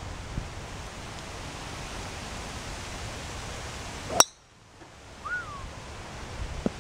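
A golf driver striking a ball off the tee about four seconds in: one sharp metallic ping with a brief ring, over a steady background hiss.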